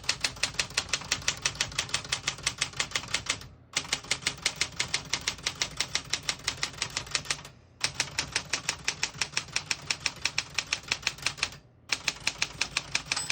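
Smith-Corona Galaxie Deluxe manual portable typewriter being typed on: rapid, even key strikes, about six a second, in several runs with short pauses between them.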